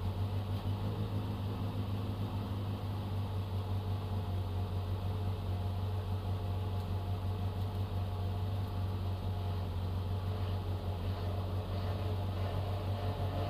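Citroën AX GTI's 1.4-litre four-cylinder engine idling steadily, heard from inside the cabin.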